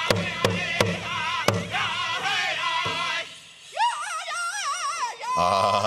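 Powwow drum group singing a chicken dance song: a big drum is struck about three times a second, then stops about a second and a half in while the voices carry on in high, wavering singing, ending on a long held note.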